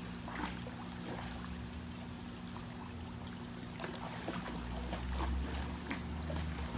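Swimming-pool water trickling and lapping, with small splashes, over a steady low hum.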